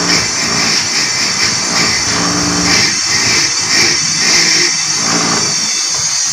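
Bench grinder motor running steadily while a small steel washer is pressed against the spinning wheel, giving a continuous grinding hiss over the motor's hum.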